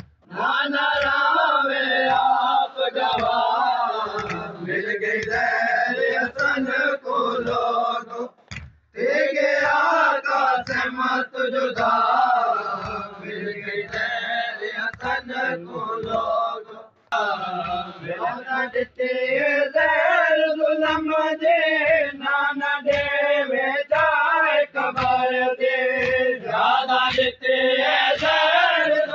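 A group of men chanting a noha, a Shia mourning lament, in unison, with a steady beat of hands striking chests (matam) about one and a half times a second. The chanting breaks off briefly twice.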